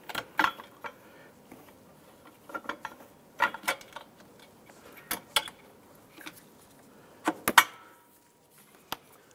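Scattered clicks and light knocks of hard parts being handled as a bracket is worked into place among wiring and coolant lines, the loudest pair about seven and a half seconds in.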